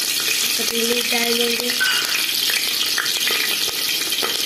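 Chopped green chillies sizzling steadily as they fry in hot oil in an aluminium pressure-cooker pot.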